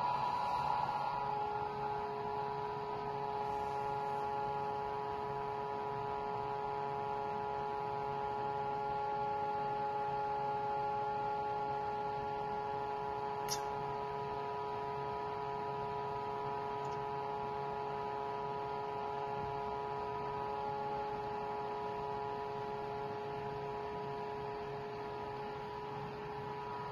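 Steady electric hum with several fixed tones from a vibratory stress relief exciter, an electric vibrator motor clamped to a welded steel part, running at constant speed to shake the part. One of the tones comes in about a second in.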